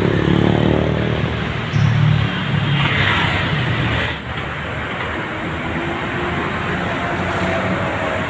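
Road traffic: a steady rumble and hiss of cars and other vehicles going by, with a brief louder hiss about three seconds in.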